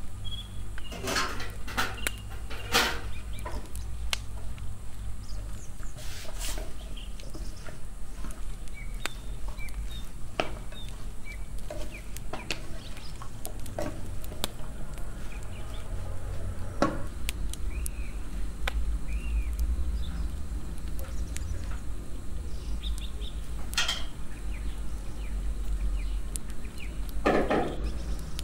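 Cooking sounds: a wooden spoon stirring chopped celery in a frying pan on a portable gas burner, with scattered clanks of pots, lids and bowls, the loudest near the start and near the end. Chickens cluck faintly in the background.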